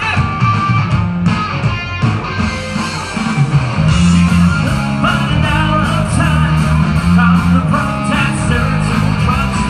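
A live band playing, with electric guitar over heavy low notes and a steady beat, coming through the stage PA. It grows louder and fuller about three and a half seconds in.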